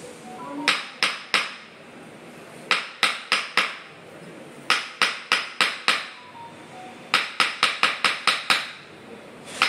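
Wooden mallet striking a wooden stick held against a patient's back in traditional bone-setting percussion. Sharp wooden knocks come in short runs of three to eight, about three a second, with brief pauses between the runs.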